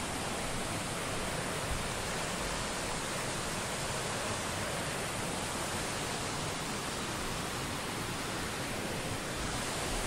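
Waterfall: a steady, even rush of falling water with no let-up.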